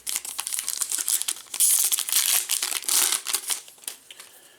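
Wrapper of a Panini Prizm basketball trading-card pack crinkling and tearing as it is opened. The crackle is busiest in the middle and thins out near the end.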